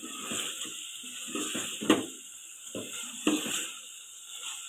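Wooden spoon stirring chicken pieces and capsicum strips frying in oil in a metal pot: a steady sizzle under irregular scrapes and knocks of the spoon against the pot. The sharpest knock comes a little under two seconds in.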